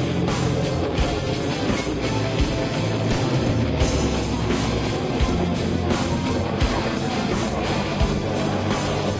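Background hard rock music with electric guitar over a bass line, and drum hits at a steady pulse.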